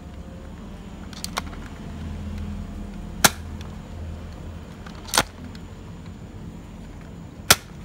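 Nerf Fortnite 6-SH blaster firing three shots about two seconds apart, each a sharp snap, with two fainter clicks about a second in. A low steady rumble runs underneath.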